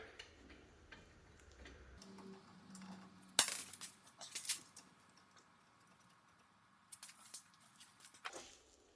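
A few faint, sparse metallic clinks and clicks of steel nuts and parts being handled as nuts are started by hand on a truck's front hub, the sharpest about three and a half seconds in and a small cluster near the end.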